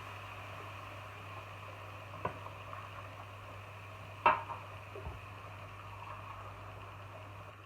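Steady low hum and faint hiss of a kitchen, with three light clicks or taps; the loudest, a little past the middle, is a short ringing clink like kitchenware being set down.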